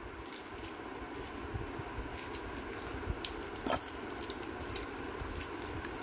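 Faint, scattered clicks and taps of metal parts being handled as a ceiling fan motor is reassembled, the stator with its bearing and spring being fitted into the rotor housing. A steady hiss runs underneath.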